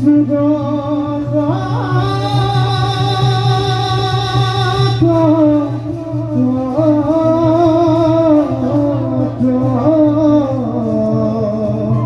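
Bhaona song: a voice sings long, wavering melodic phrases over steady instrumental accompaniment.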